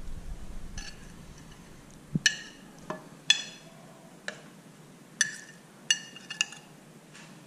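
A metal spoon clinking against a ceramic plate and the rim of a sauté pan as fish fillets are pushed off the plate into the pan: a scattered series of sharp clinks, several ringing briefly.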